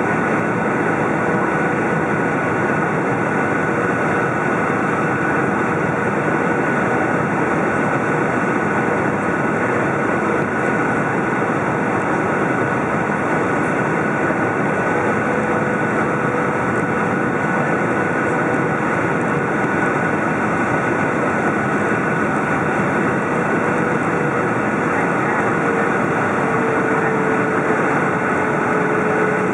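Cabin noise of a Boeing 737 on final approach, heard beside the wing and its CFM56 turbofan engine: steady engine and airflow noise with a steady high whine. A fainter lower hum comes in about halfway through and shifts slightly in pitch near the end.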